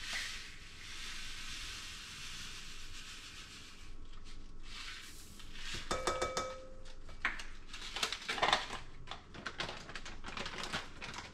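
Sesame seeds poured from a packet into a mixing bowl of flour, a steady hiss lasting about four seconds. After that, plastic packets rustle and crinkle as they are handled.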